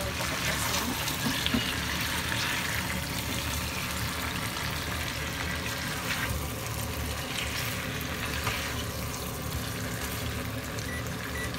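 Chicken legs with ginger and onion sizzling in a nonstick frying pan, the meat's own watery juices bubbling off, with a spatula turning the pieces. The hiss drops somewhat about six seconds in.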